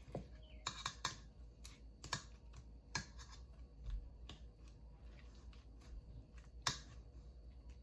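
Scattered light clicks and taps, about a dozen at uneven intervals, from handling food, utensils and containers at a table; one sharper click near the end.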